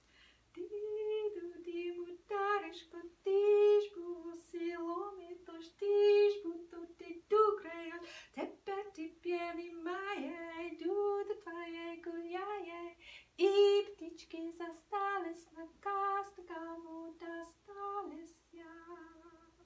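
A woman singing a melody solo and unaccompanied, in a string of held notes.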